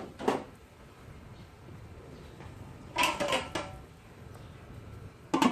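A cooking pan being covered with its lid, with light clatters of metal cookware about three seconds in and a sharp knock near the end, over a low steady background.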